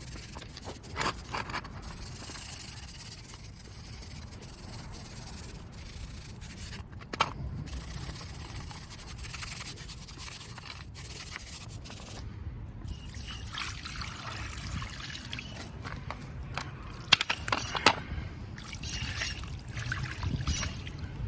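Wire brush scrubbing a wet, Simple Green–sprayed steel car-jack part by hand, an uneven rasping scrape, with a few sharp knocks of the part or brush.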